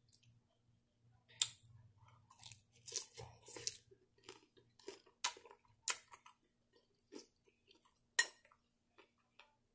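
A person chewing a mouthful of spinach-and-cucumber salad close to the microphone: a string of short, crisp crunches, the sharpest about a second and a half, five, six and eight seconds in.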